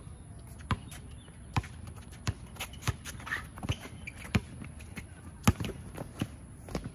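Basketball dribbled on an outdoor hard court: about ten sharp bounces at an uneven pace, roughly one a second at first and quicker in the middle, the loudest a little past the middle.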